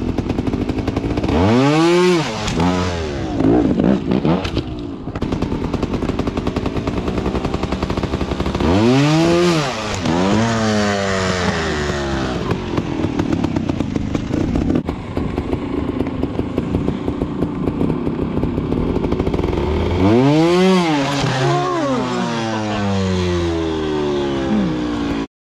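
Trials motorcycle engine blipped up and dropped back in three short bursts of revs, with steady rattling and clatter between them. The sound cuts off suddenly near the end.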